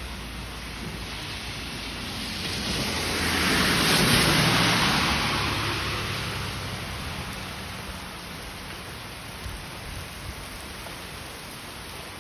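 Heavy rain falling steadily, swelling louder for a few seconds about four seconds in, then easing back.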